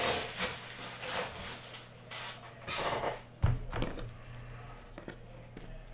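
Trading cards being handled and gathered into a stack, with a few short rustling swipes, then a dull thump about three and a half seconds in.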